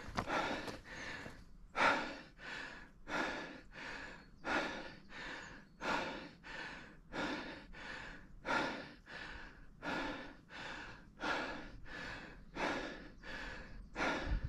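A person panting hard close to the microphone: quick, heavy breaths in and out at about two a second, with no let-up.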